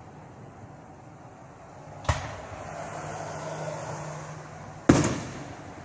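Aerial fireworks exploding: two sharp bangs about three seconds apart, the second the louder, each trailing off in a rolling echo.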